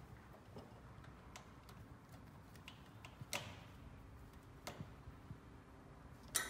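Small screwdriver working the screw terminal that clamps the positive cable into a solar generator's solar input. It makes faint, irregular clicks and scrapes of metal, the sharpest click near the end.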